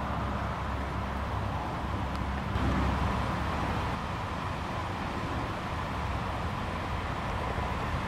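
Steady outdoor background noise: a low rumble with an even hiss over it and no distinct events.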